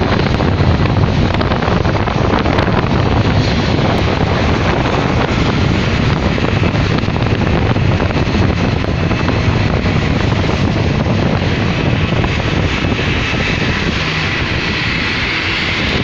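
Jet airliner engines running as the aircraft taxis: a steady, loud rumble with a faint high whine that grows stronger near the end.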